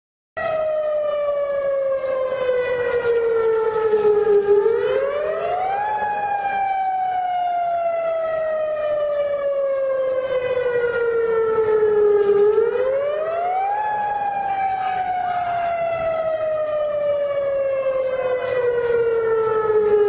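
Outdoor warning siren wailing: a single tone rises quickly, then falls slowly over several seconds, and the cycle repeats twice.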